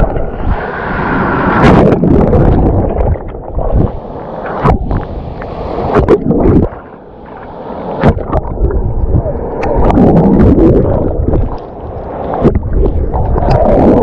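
Storm waves of the Black Sea surging and breaking close to the microphone, with water splashing right at it and wind buffeting. The sound swells and eases with each wave, with a short lull about seven seconds in.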